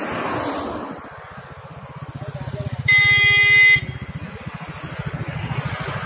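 Road traffic passing close by: a swell of passing-vehicle noise, then a motor vehicle's engine rumbling near with a fast pulsing beat, which gives one steady horn blast just under a second long about three seconds in.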